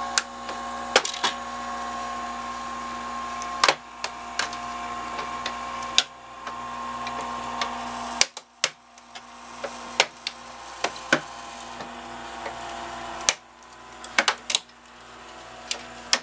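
Treadmill incline motor humming steadily as it drives its threaded screw out against a printer's frame, with repeated sharp cracks as the frame is forced apart. The hum breaks off about eight seconds in, comes back around ten seconds and stops again near thirteen.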